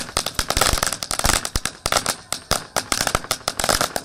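A string of ordinary firecrackers going off in rapid, irregular cracks, stopping shortly before the end.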